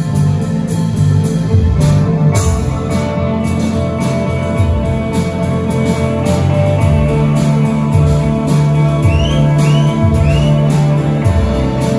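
Band playing an instrumental passage with no vocals, led by guitar, over low sustained notes and a steady beat.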